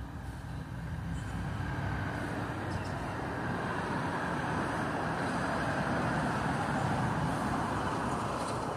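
Diesel freight locomotive approaching slowly at the head of an autorack train, its engine rumble and wheel noise growing gradually louder.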